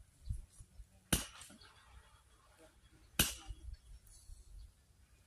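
Two sharp clinking knocks about two seconds apart, the first about a second in, each with a short bright ring.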